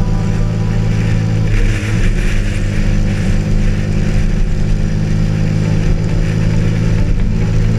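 Zongshen RX3 motorcycle engine running at a steady cruising speed, with a rush of wind noise about two seconds in.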